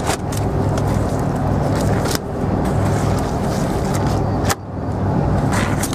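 Boat engine running steadily, with a few sharp knocks over it.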